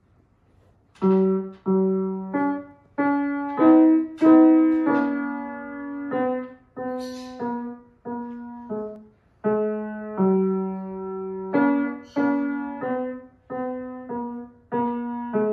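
Grand piano played solo, starting about a second in: a slow-paced piece of separate struck notes and chords, each ringing and fading before the next.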